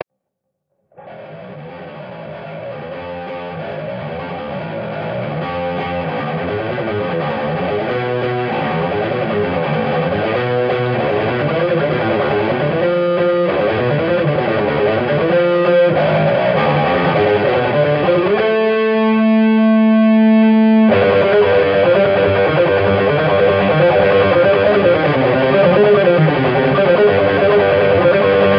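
Electric bass guitar played solo through distortion and effects, fast busy note runs fading in about a second in and growing louder. About two-thirds of the way through a single note is held and rings for a couple of seconds before the fast playing resumes.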